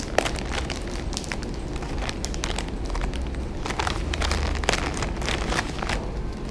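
Plastic sticker packet crinkling and crackling as fingers rummage through it, a dense run of irregular sharp crackles.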